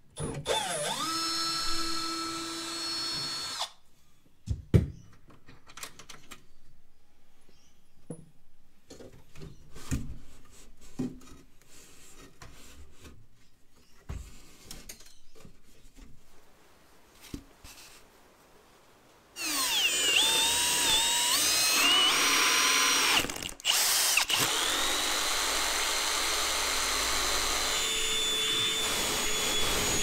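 A cordless drill-driver spins up and runs for about three and a half seconds, backing out a panel screw. This is followed by scattered knocks and clicks as the carpeted panel is handled. About two-thirds of the way in, a loud electric motor starts, its pitch wavering for a few seconds before it settles into a steady run; by the end this is a Milwaukee cordless stick vacuum.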